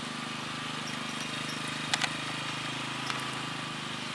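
An engine idling steadily, a low even hum with a fast regular pulse. Two faint clicks come about two seconds in.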